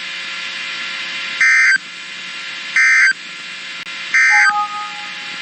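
Emergency Alert System end-of-message code: three short bursts of digital data tones about 1.4 seconds apart, over a steady broadcast hiss and hum. After the third burst, a faint steady two-note tone sounds briefly.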